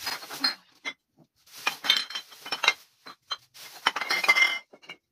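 Empty glass wine bottles clinking and knocking against each other as they are gathered into a plastic garbage bag. It is an irregular string of bright ringing clinks, busiest about two seconds in and again near the end.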